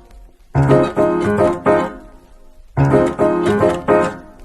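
Background music: piano playing two short phrases of chords with a brief pause between them.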